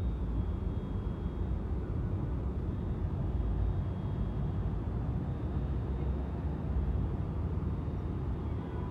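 2009 NABI 40-LFW diesel-electric hybrid city bus running while stopped close by: a steady low rumble.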